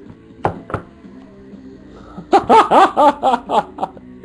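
A person laughing in a quick run of ha-ha bursts for about a second and a half past the middle, over faint background music. Two sharp clicks come in the first second.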